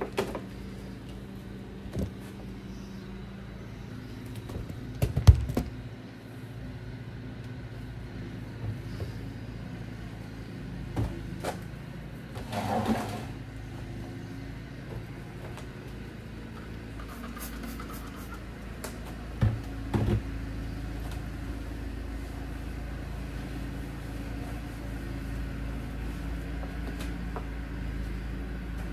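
Kitchen counter cleaning: scattered knocks and clatters of objects being moved and set down on the counter, the loudest about five seconds in, over a steady low hum.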